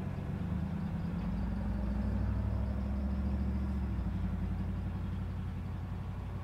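Road traffic at an intersection: a nearby vehicle engine running with a low, steady hum that is loudest through the middle and eases off after about four seconds.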